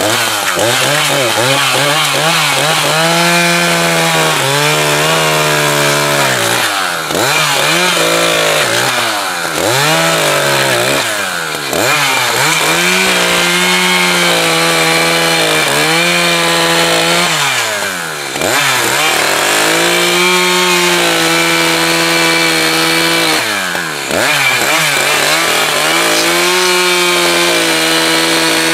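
Two-stroke Echo chainsaw at full throttle bucking firewood logs with a freshly fitted sharp chain. The engine pitch sags under load in each cut and climbs again between cuts, several times over.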